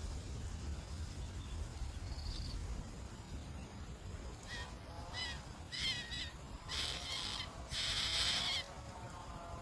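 Bird calls: three short chirps with a bending pitch, then two harsh, raspy calls, the last the loudest and longest. A low rumble runs underneath.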